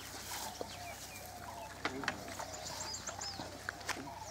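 Birds chirping and calling, with a quick run of high notes and arching whistles about three seconds in. A few faint sharp clicks are scattered through.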